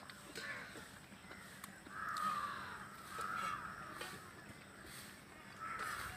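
Crows cawing: several harsh calls a second or two apart.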